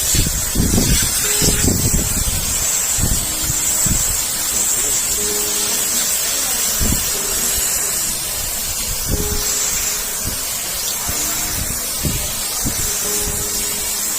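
A water jet spraying steadily onto a car AC condenser, rinsing dust out of its fins: a constant hiss, with irregular low thumps mostly in the first few seconds.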